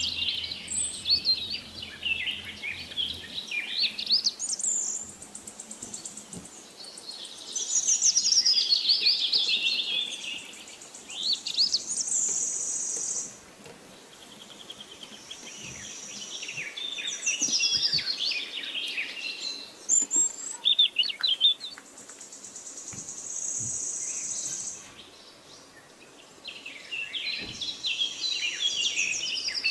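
Songbirds singing in bursts of quick, high chirps, whistles and trills, with short pauses between phrases.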